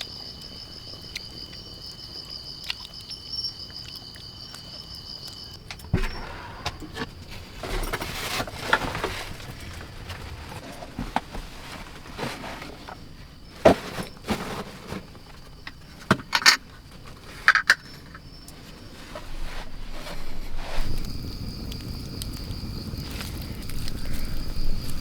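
Insects chirring steadily with a high, even tone, cut off abruptly about six seconds in. Then come scattered sharp knocks, clicks and rustling of handling or footsteps, the loudest at about 14 and 16 seconds. The chirring comes back near the end.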